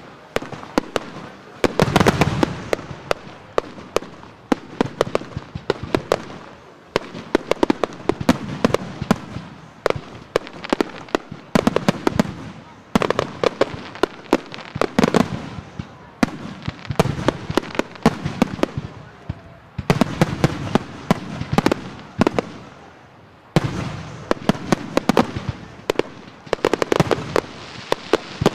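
Fireworks display: rapid sharp bangs and crackling as fireworks launch and burst overhead, in dense volleys that swell and ease every few seconds.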